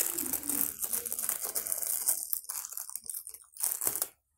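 Thin clear plastic wrapping crinkling as it is peeled off a small lavalier microphone by hand, in dense irregular crackles that thin out to scattered ones after about two seconds. The sound drops out completely for a moment just before the end.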